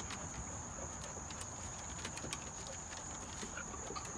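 Large dogs' claws clicking and paws shuffling irregularly on wooden deck boards, over a steady high chirr of insects.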